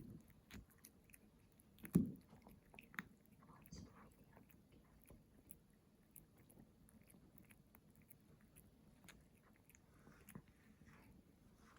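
A dog chewing and biting a raw turkey neck, with scattered wet crunches and clicks of teeth on bone and one louder crunch about two seconds in.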